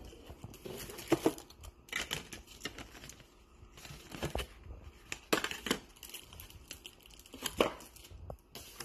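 Packaging being handled and opened: irregular crinkling, rustling and tearing, broken by a few sharp clicks.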